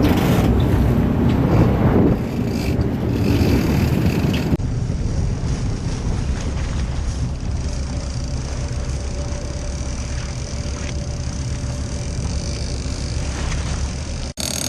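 Boat engine running, with wind noise on the microphone. It is louder and gustier for the first four and a half seconds, then changes abruptly to a steadier running sound, with another sharp break just before the end.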